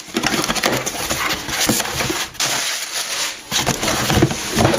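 Cardboard shipping box being torn open by hand: dense scraping, crackling and rustling of cardboard and packing material.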